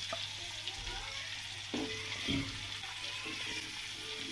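Sambal sauce sizzling in a metal wok, a steady frying hiss, with a few scrapes and knocks of a metal spatula against the wok and plate as fried meat is lifted out, about halfway through.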